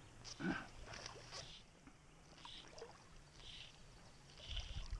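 Faint water lapping and a few soft small splashes around an inflatable float tube's pontoons.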